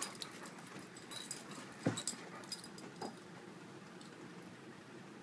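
Pit bull spinning after her tail: quick scuffles and jingling clicks from the dog's movements, with one louder knock about two seconds in, settling quieter after about three seconds.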